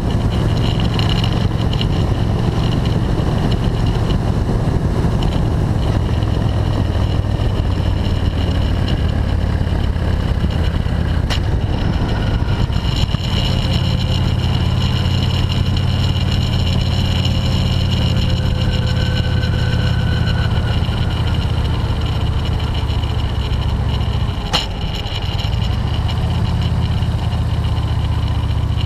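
Touring motorcycle's V-twin engine running steadily while riding, with wind and road rush. About 25 s in the engine note dips briefly with a sharp click, and there is another click about 11 s in.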